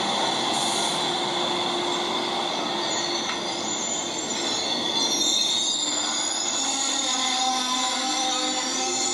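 Amtrak Superliner passenger cars rolling past, the steel wheels squealing against the rail over the steady rumble of the train. Several thin, high squeal tones come and go, more of them in the second half.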